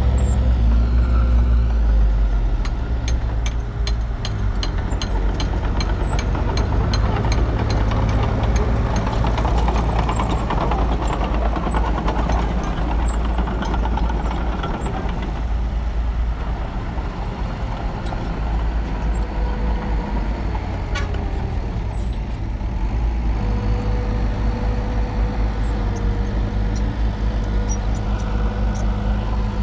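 Diesel dump truck engines running while the trucks raise their beds to unload soil and rock. The steady engine note shifts a couple of seconds in and settles into a steady note again about three quarters of the way through, with scattered clatter in the first third.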